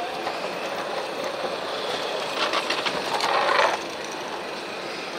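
Steady background noise of a large exhibition hall, with a brief burst of rattling, clicking clatter about two and a half seconds in that lasts just over a second.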